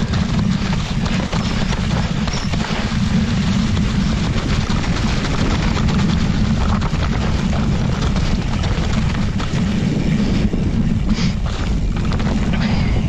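Mountain bike descending a wet, leaf-covered trail: tyres crackling through fallen leaves and the bike rattling over the ground, under a steady low wind rumble on a helmet-mounted action camera's microphone.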